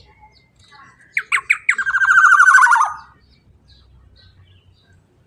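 Black-naped oriole (kepodang emas) calling loudly: three sharp falling notes about a second in, then a rapid rattling phrase that ends in a falling note, with faint chirps around it.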